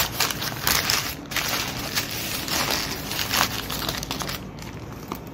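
Subway sandwich's paper wrapper and plastic bag crinkling and rustling in irregular crackles as hands unwrap the sandwich, dying down near the end.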